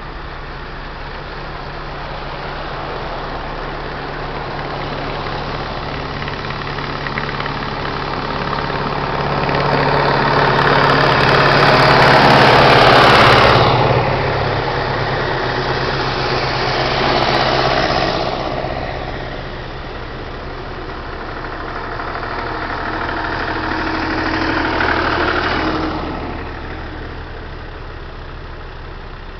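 Engines of a slow procession of vehicles, a pickup and then vintage grey tractors, passing one after another, over a steady low engine hum. The sound swells as each passes close by: loudest about halfway through, again shortly after, and once more near the end.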